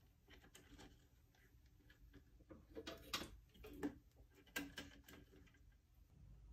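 Faint clicks and light knocks of hands handling wiring and parts in an open amplifier chassis, a cluster of them between about two and a half and five seconds in.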